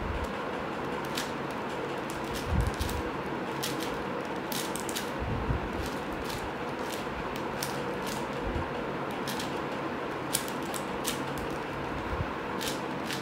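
A plastic 4x4 Rubik's Cube being turned layer by layer, its layers making irregular clicks and clacks, over a steady background hiss.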